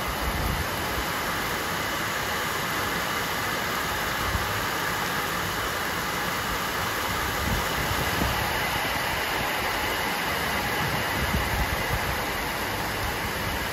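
Heavy rain pouring down onto a paved lot and parked cars: a steady, dense hiss with an uneven low rumble underneath.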